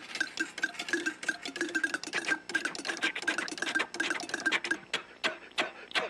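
Hand-made cartoon sound effect of an old-time motor car's engine putt-putting: a fast rattle of pops with a reedy tone, thinning to a few slower pops about five seconds in.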